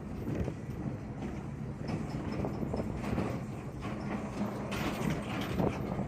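Vehicle running, a steady low rumble with frequent small rattles and knocks.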